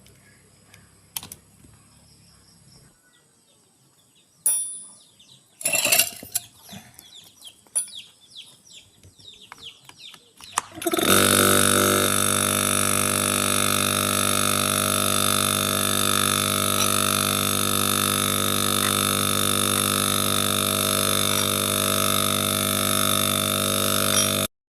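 A few clicks and knocks, then about eleven seconds in a loud, steady electrical hum with many overtones starts and holds without change until it cuts off abruptly near the end. This is a stuck (seized) refrigerator compressor humming under power, the fault that leaves the fridge not cooling.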